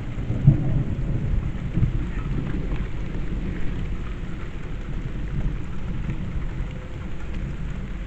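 Heavy rain pouring down, with low rumbles of thunder in a severe thunderstorm.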